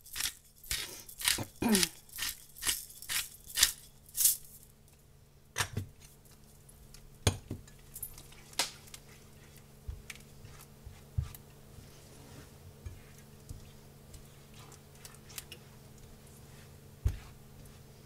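Pepper being added over a skillet of sausage gravy: a quick, even run of sharp clicks, about three a second, that stops about four seconds in. After that a silicone spatula stirs the thickened gravy in the nonstick pan, with scattered light knocks against the pan.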